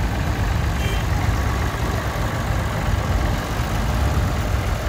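Engines of vintage tractors driving slowly past close by, a steady low rumble.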